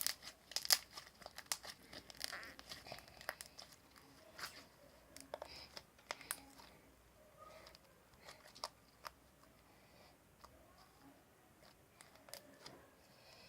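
Homemade glue slime being squeezed and worked by hand, giving off faint, irregular crackles and small popping clicks. They come thickest in the first few seconds and grow sparse after.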